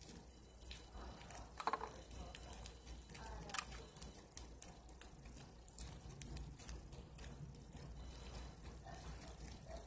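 Slime being squished and poked close to the microphone: irregular small clicks and crackly pops.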